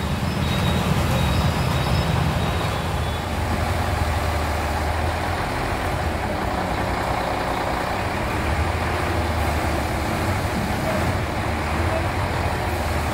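Heavy diesel engine of a Coles truck-mounted crane running with a steady low drone.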